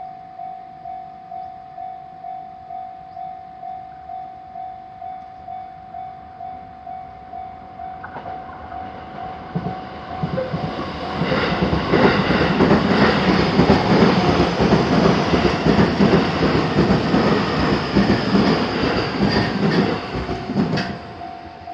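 Japanese level crossing's warning bell ringing about twice a second as a JR Yokohama Line train approaches from about eight seconds in, then passes loudly for about ten seconds with its wheels clacking over the rails. Near the end the train has gone and the crossing bell is heard again.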